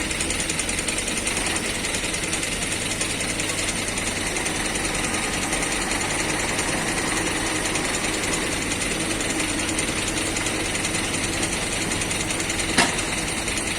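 Heavy diesel construction machinery running steadily with a rapid, rattling engine clatter, and a single sharp click near the end.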